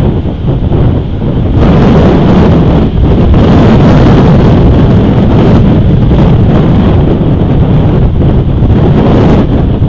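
Strong wind buffeting an outdoor camera's microphone: a loud, low rumbling noise that swells and dips in gusts, with brief lulls about a second in and near three seconds.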